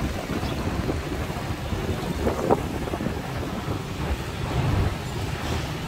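Busy city road traffic running steadily, with wind buffeting the microphone and a brief louder sound about two and a half seconds in.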